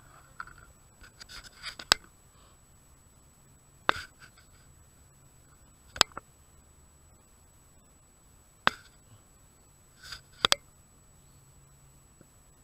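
Handling noise from a camera mounted on a metal detector: about six sharp clicks or taps, roughly two seconds apart, the last a quick double, over a faint steady electronic hum.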